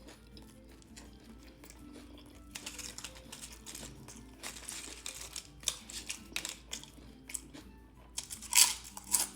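Crinkling and crunching of a sandwich being handled and put together, over soft background music; the crackles grow busier partway through, and the loudest come in two sharp bursts near the end.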